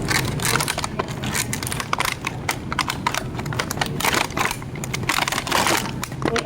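Irregular clicks and short crinkling rustles, like items or packaging being handled, over a steady low hum.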